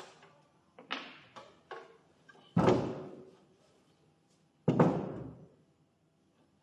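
A few small clicks of metal parts being handled, then two heavy thuds about two seconds apart as the metal flooring cutter is tipped over and set down on the table, each dying away over about a second.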